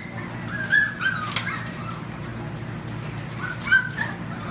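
Young puppies giving short, high-pitched whimpering cries, a couple about a second in and more near the end, with one sharp click between them.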